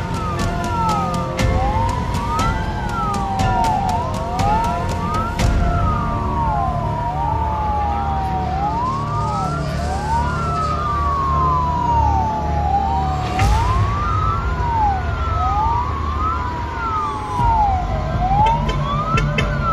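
Fire engine sirens wailing: two sirens overlap, each sweeping up and down in pitch, over a low rumble.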